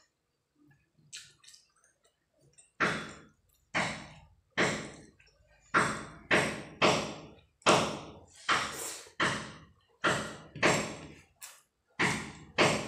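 Close, wet eating squelches of rice, dal and fish curry, a run of about fifteen quick squishes at roughly one and a half a second, starting about three seconds in after a quiet stretch.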